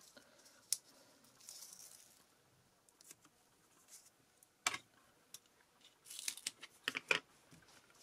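Faint handling of card stock and a roll of foam mounting tape: scattered small clicks and taps with a brief rustle, the sharpest taps about five seconds in and a quick run of them a second later.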